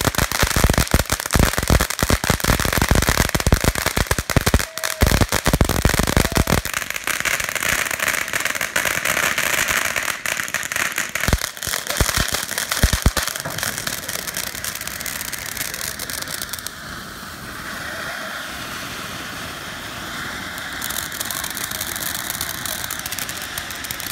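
Several ground spark fountains burning at once. Rapid crackling pops for the first six seconds or so, then a steady hissing spray with a few scattered pops, getting a little quieter in the second half.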